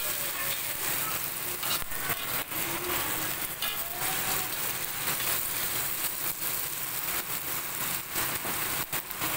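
Snails sizzling in hot oil in a steel wok as they are stir-fried, with a metal spatula scraping and clicking against the pan now and then.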